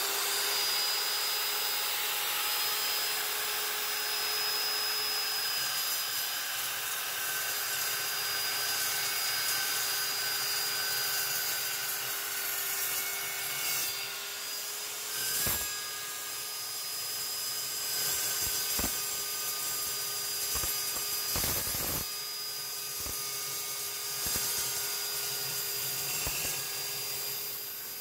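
Evolution S380CPS steel chop saw running at speed with a steady high whine while its blade cuts through 3-inch steel angle iron. A few short knocks and rattles come in around the middle of the cut.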